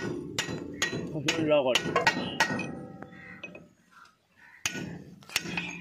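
Hammer blows ringing on steel as the king pin is driven out of a Swaraj tractor's front axle: a run of sharp strikes about two a second, a pause, then two more blows near the end.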